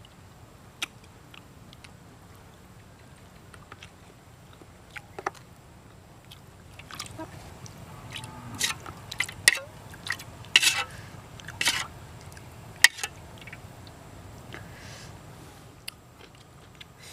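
Eating sounds: a metal spoon clinking and scraping in a metal wok as sauce is spooned over braised eggs, with chewing and mouth sounds. The clinks and scrapes come in a cluster in the middle, the loudest a few sharp clinks near the end of that cluster.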